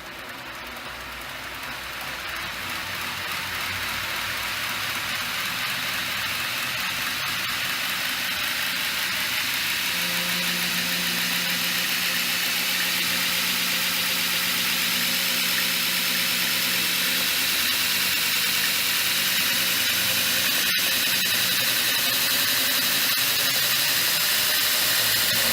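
DIY belt grinder built to Jeremy Schmidt's design, driven by a 2 hp Leeson three-phase motor on a variable-frequency drive, running with its belt whirring. Its speed and loudness climb steadily as the drive is turned up.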